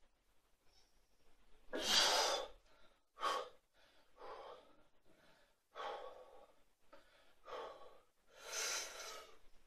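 A weightlifter breathing hard between reps of a heavy barbell back squat: about six forceful breaths, the longest and loudest about two seconds in and again near the end.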